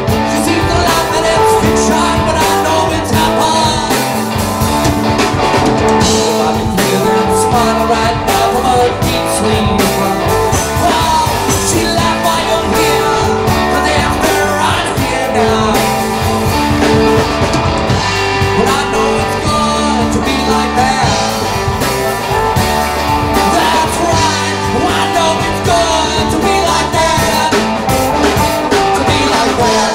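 Live blues-rock band playing: electric guitar, bass guitar and drum kit, with a harmonica cupped against the vocal microphone and sung vocals.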